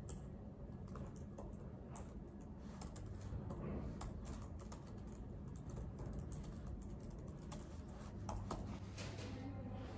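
Typing on a laptop keyboard: a fast, irregular run of soft key clicks over a low steady hum.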